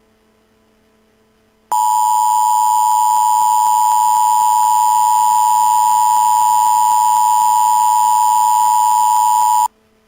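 Emergency Alert System two-tone attention signal, sounding steadily for about eight seconds; it starts about two seconds in and cuts off abruptly. A low hum is heard before and after it.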